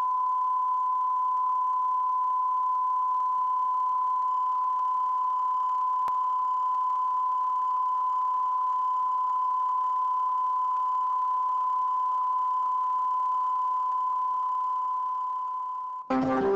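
Steady 1 kHz line-up tone over colour bars at the head of a videotape, the audio reference for setting levels, with faint tape hiss underneath. Near the end it fades and cuts off, and guitar music begins.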